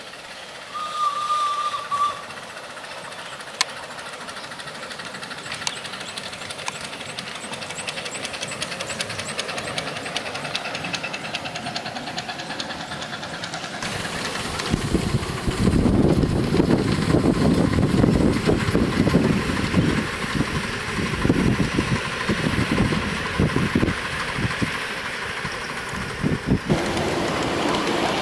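Small ride-on tramway locomotive running on light rail track, growing louder as it approaches. From about halfway it is close and loud, its motor running and its wheels clattering rapidly over the rails. A short high steady tone sounds about a second in.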